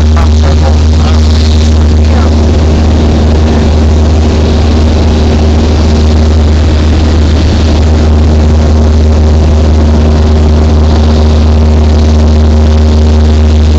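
Steady drone of a light aircraft's engine and propeller, heard from inside the cabin in cruise flight, a loud low hum with fixed higher tones over it.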